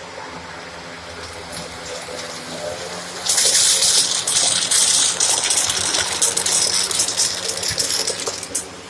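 Shark AZ910UK vacuum cleaner running with a steady hum. About three seconds in, a loud rushing hiss with many short crackles starts.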